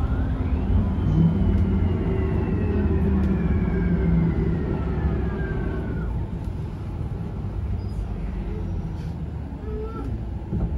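Bus engine and road noise heard from inside the passenger cabin: a steady rumble with a whine that falls slowly in pitch over the first six seconds, after which the sound grows a little quieter.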